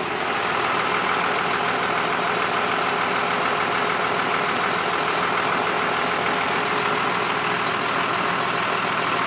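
School bus diesel engine idling steadily, loud and close with its engine cover open inside the cabin. It keeps running because its engine shutoff cable has broken.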